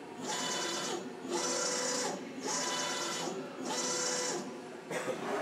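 Bridgeport Romi EZ Path S CNC lathe's axis servo motors and ballscrews rapid-traversing the carriage: four whining moves of about a second each, separated by short pauses.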